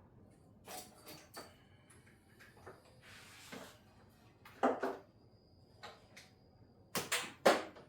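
Hand tools and metal car parts clicking and clanking in a scattered series, with a brief hiss about three seconds in and the loudest clanks near the end.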